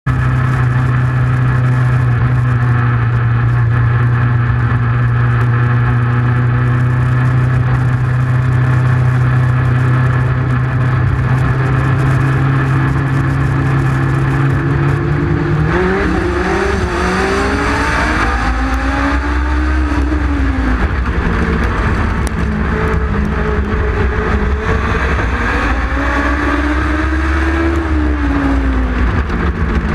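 Legend race cars' Yamaha four-cylinder motorcycle engines running loud onboard: a steady low drone while the cars roll slowly in formation, then about halfway through the engine note climbs and rises and falls in long sweeps as the pack accelerates and the race gets under way.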